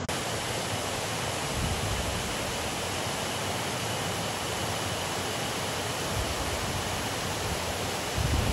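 Water pouring over a large weir on a mountain stream: a steady, even rush of falling water, with a few low thumps near the end.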